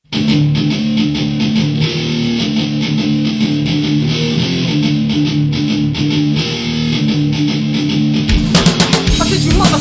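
Instrumental intro of a hardcore rap-metal song: a repeating guitar riff of low sustained notes over a steady beat. About eight seconds in, the full band crashes in with drums and the sound gets fuller and heavier.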